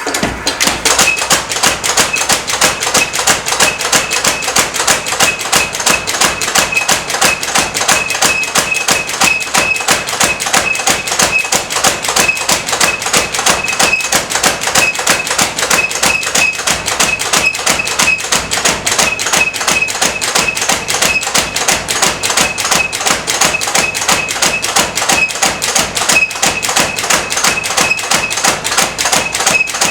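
Power hammer striking hot steel in a fast, steady rhythm of blows, with a metallic ring over the strikes.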